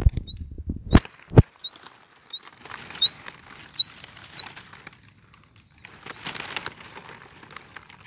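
Caught coucals flapping and rustling in the grass in two bursts, with short, high, rising squeaky chirps repeating about every half second. Two sharp knocks sound about a second in.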